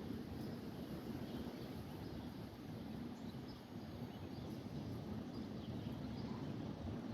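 Quiet outdoor background: a steady low rumble with a few faint chirps.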